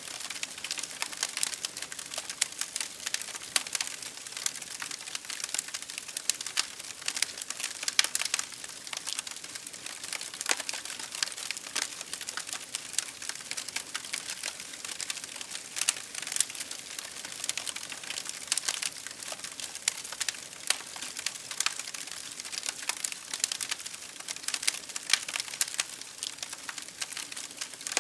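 Wood fire crackling: a steady run of irregular pops and snaps from burning firewood, with a few louder pops scattered throughout.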